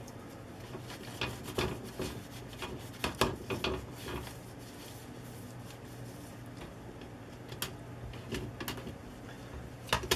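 Tissue rubbed over the keypad contact pads of a cordless phone's circuit board, with scattered small rubbing and clicking handling sounds and quiet stretches between them, over a faint low hum.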